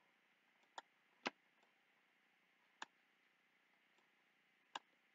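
Four sharp, isolated clicks of a computer mouse at uneven intervals, the second the loudest, over near silence.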